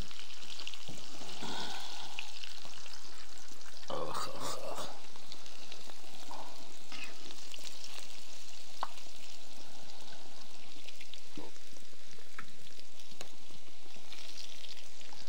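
Food frying in a pan of hot oil: a steady sizzle with a few light clicks and a brief louder flare about four seconds in.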